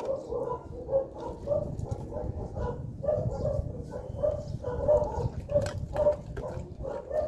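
A dog barking over and over, about two barks a second, with a low rumble underneath.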